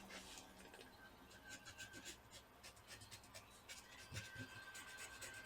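Faint, quick scratchy rubbing strokes as a laptop motherboard is cleaned around a freshly soldered chip.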